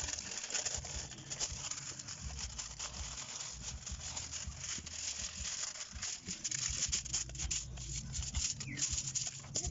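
Aluminium foil crinkling and rustling as it is pulled off the roll, handled and smoothed flat by hand: a dense run of small crackles.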